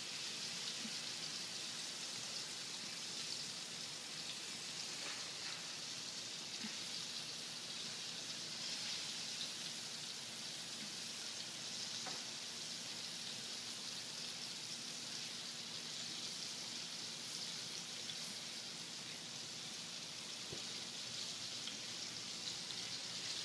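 Hot oil sizzling steadily in a frying pan around pieces of fried chicken, with a few faint clicks as a spatula works in the pan.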